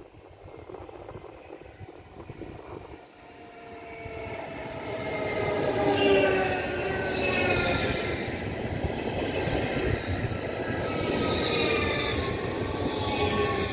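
Rhein-Ruhr-Xpress Siemens Desiro HC electric multiple unit approaching and running past close by. The rumble of its wheels on the rails grows from about four seconds in and is loudest from about six seconds in. Over it, high whining tones from the traction equipment slide down in pitch as it passes.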